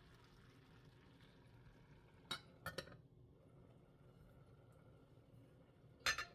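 Kitchenware clinking a few times over faint room noise: one light clink about two seconds in, a quick pair just after, and another near the end.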